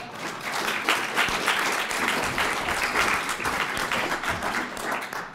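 Audience applauding, thinning out near the end.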